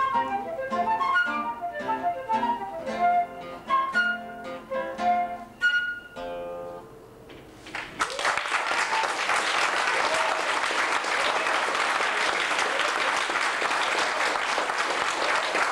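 Flute and classical guitar playing a quick run of short notes, closing on a held final chord about six seconds in. About eight seconds in, an audience breaks into steady applause.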